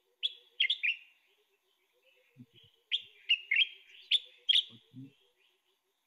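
Common bulbul (Pycnonotus barbatus) singing from a played-back field recording: two short phrases of quick, sharp notes, the first right at the start and the second about three seconds in.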